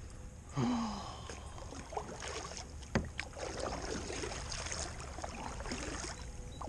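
Water splashing and lapping around a kayak, with a short falling-pitched sound about half a second in and a sharp click about three seconds in.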